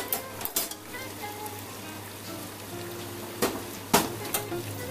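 Beef cubes sizzling and crackling in hot oil in an aluminium pressure-cooker pot, with a few sharp clicks of a steel spoon against the pot.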